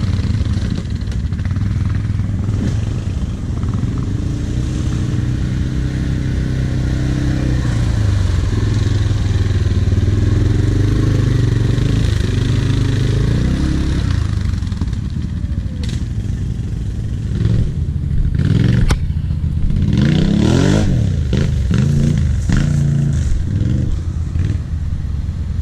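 Quad-bike (ATV) engines running steadily at low revs through deep mud. Near the end an engine revs up and down several times in quick succession.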